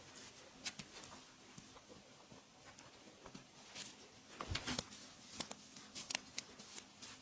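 Hands rubbing and patting on skin during a massage, with scattered light clicks and a soft thump amid a cluster of clicks about four and a half seconds in.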